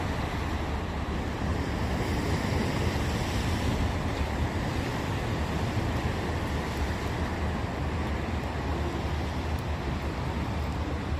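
Sea surf washing against a concrete breakwater and pier, with a steady low rumble of wind on the microphone.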